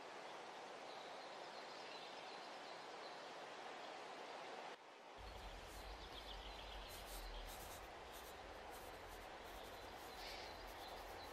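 Faint steady background ambience, then, about five seconds in, a pen nib scratching on paper in many short strokes over a low hum.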